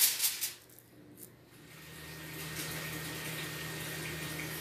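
Aluminium foil crinkling briefly as it is wrapped, cutting out within the first half second. After a short quiet with a single click, a steady low hum with a faint hiss comes up and holds.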